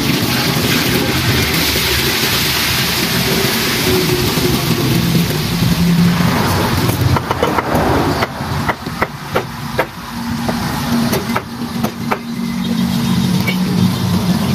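A knife knocking on a round wooden chopping block while an eel is cut: a run of about ten sharp knocks from about halfway to three-quarters of the way through. Under it is a steady background rumble with a low hum, loudest in the first half.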